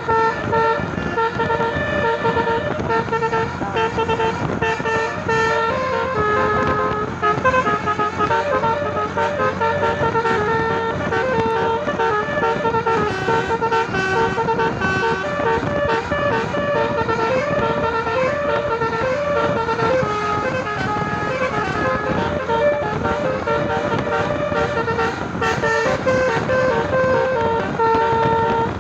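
Tour bus's 'telolet basuri' multi-trumpet musical air horn playing a tune without a break, a run of held notes that shift in pitch, over the noise of passing road traffic.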